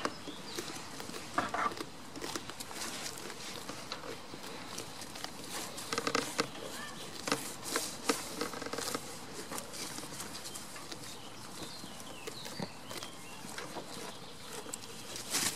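Outdoor ambience in a goat pen: scattered light rustles and clicks, with a few short, faint voiced sounds about a second and a half and about six seconds in.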